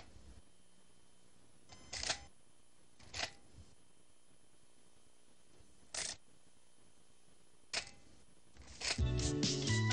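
Camera shutter clicks: about five single shots at uneven spacing, a second or a few seconds apart, over a faint tape hum. Music starts near the end.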